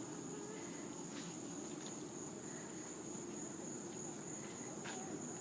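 Faint, steady high-pitched whine held without a break over a low hum, with two faint ticks, about a second in and near the end.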